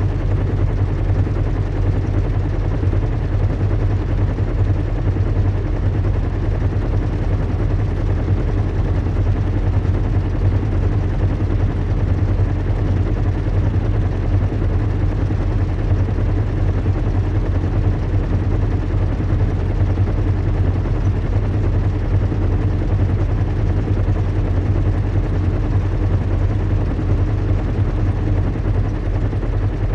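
Steady low drone of a large airship's engines and propellers in flight, recreated as an ambient soundscape: an unbroken deep hum with a fainter higher tone over a wash of noise.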